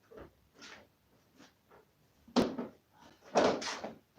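Hard plastic parts of a Dyson vacuum's cyclone and bin knocking as it is emptied into a rubbish bin: one sharp knock about two and a half seconds in, then a louder clatter lasting under a second near the end.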